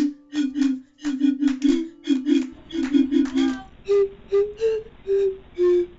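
A quick tune blown on a glass-bottle panpipe, short breathy notes each with a clear pure tone. A fast run of low notes gives way, a bit past halfway, to fewer, longer, higher notes.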